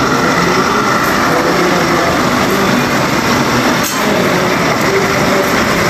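Model trains running on a club layout: a steady mechanical running noise from the moving locomotives and cars, mixed with the continuous background hubbub of the room.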